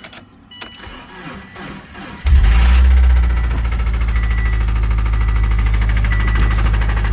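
Subaru flat-four engine starting about two seconds in, loudest just after it catches, then running steadily with a rapid knock from the bottom end: rod knock, the sign of a blown engine.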